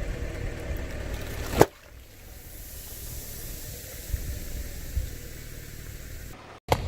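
An object crushed under a car tyre: crunching and rumbling, then one sharp crack or pop about one and a half seconds in, followed by a steady hiss with a few soft low thumps.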